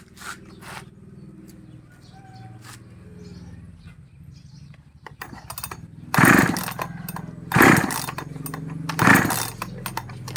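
A 5200-model gasoline chainsaw engine runs at a low idle, then from about six seconds in is revved in short loud bursts about every one and a half seconds. The engine starts only with difficulty and runs louder than it should, a fault the owner has yet to trace.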